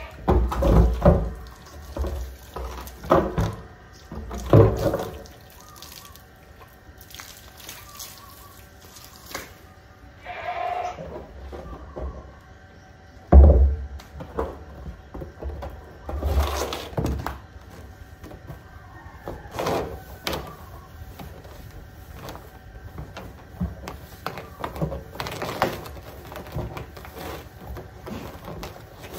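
Large blue plastic silage drums being rinsed out with a garden hose and handled on paving: water running and splashing, with a string of thuds as a drum is tipped, set down and knocked about, the loudest about halfway through.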